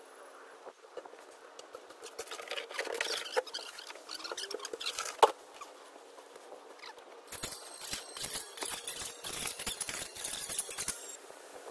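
Irregular scraping, scratching and knocking, with one sharp knock about five seconds in and a second run of quick clicks and scrapes in the last few seconds.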